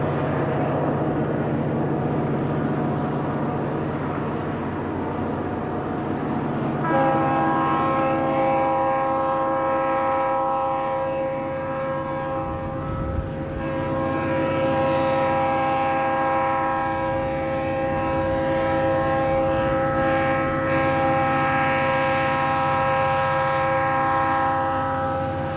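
A lashup of Delaware & Hudson diesel locomotives, five Alcos and an EMD, working up a grade with a heavy grain train, a steady low engine drone. About seven seconds in, the lead unit's multi-note air horn starts and is held for a long time, sounded for a grade crossing. It weakens briefly about halfway and then sounds on until it cuts off near the end.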